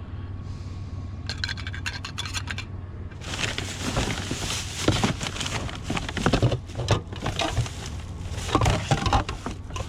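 Rummaging through a pile of curbside junk: small metal and plastic household items rubbing, scraping and clattering against each other. Light clicking at first, then denser scraping with a few louder knocks in the second half.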